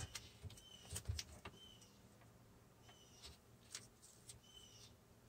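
Near silence: faint clicks and rustles of blue painter's tape being handled on a cabinet door, with a few faint short high chirps.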